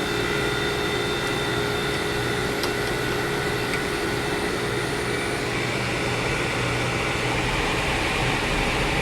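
Restored 1973 Gibson 8000 BTU window air conditioner running on low cool: the fan's steady airflow over the hum of the cold-started compressor. The hiss of the air grows a little stronger about halfway through.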